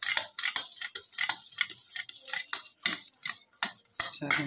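Metal spoon beating curd in a stainless steel bowl, clicking and scraping against the metal in quick strokes about four times a second.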